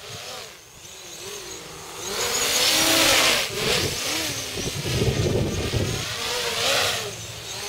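V-tail quadcopter's four 2208 1100Kv brushless motors spinning 8-inch GemFan props on a 4-cell battery, a whine whose pitch rises and falls with every throttle change. It swells loudest about three seconds in and again near the end.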